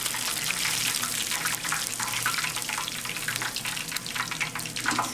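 Hot oil sizzling in an iron pan as pieces of scorpionfish deep-fry in their second frying: a steady sizzle with many small crackles, a little quieter near the end.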